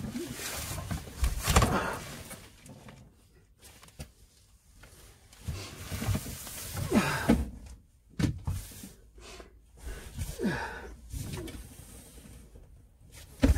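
Rustling, scraping and knocking as cable is handled in a cramped loft, coming in irregular bursts, loudest about a second and a half in and again around seven seconds in.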